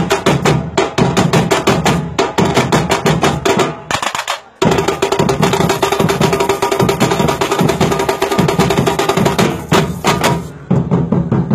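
Batucada percussion ensemble playing a fast, dense samba groove on bass drums and snare-type drums. It drops out briefly about four seconds in and dips again shortly before the end.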